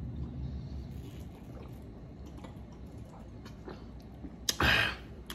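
A man drinking from a plastic water bottle: faint swallowing and small mouth ticks, then a short, louder breath out about four and a half seconds in.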